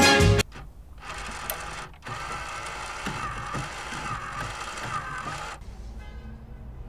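The last moment of a pop song cuts off about half a second in. A steady mechanical clicking and whirring follows, with faint wavering tones in it, and stops abruptly about five and a half seconds in.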